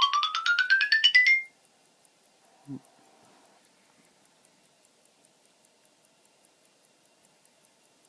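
A loud, rising, pulsing electronic tone for about the first second and a half, then a soft knock. After that comes the faint, fast, even ticking of an antique Illinois 19-jewel pocket watch movement running.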